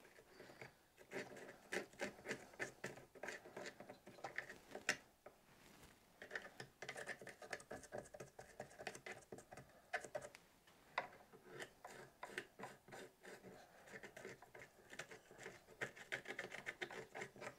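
Faint, irregular scratching and scraping of a thin metal tool digging rotten material out of a crack in cottonwood bark, in many short strokes.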